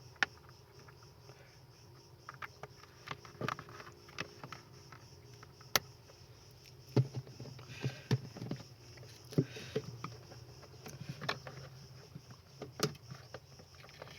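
Irregular clicks and light knocks of parts and hand tools being handled while a refrigerator's defrost heater and defrost timer are fitted, over a faint low hum.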